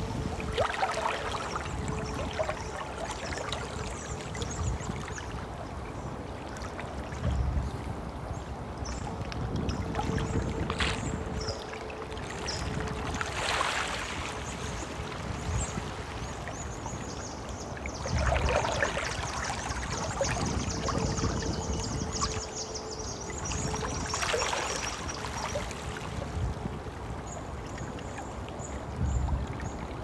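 Stream flowing steadily, gurgling and lapping, with louder swells every few seconds. Small birds chirp high above the water sound, mostly in the second half.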